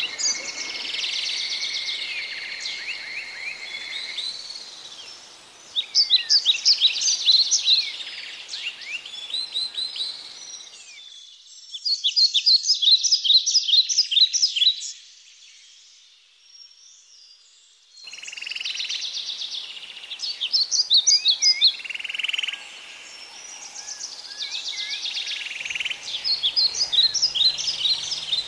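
Wild animal chirping in rhythmic trains of rapid, high-pitched calls, each train lasting a second or two, repeating over a steady natural background, with some gliding whistled calls among them. There is a quiet lull a little past halfway.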